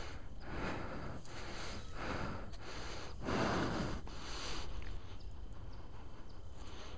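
A person breathing hard close to the microphone, a run of noisy breaths coming every half second or so, with the strongest about three seconds in.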